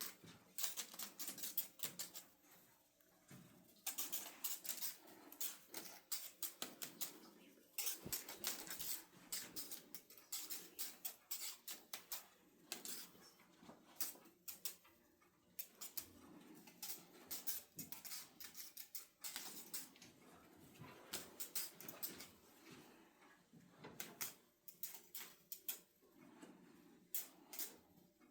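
Irregular clusters of small, sharp clicks and taps, like light objects being handled and set down on a hard surface.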